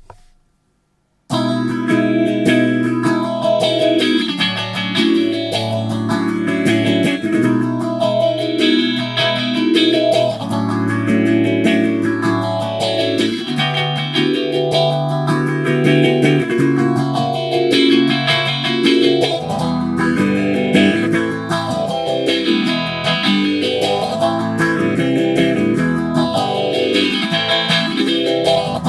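Electric guitar chords played through a Boss PH-3 phaser pedal, starting about a second in. The phaser gives the sustained chords a repeated whooshing sweep up and down.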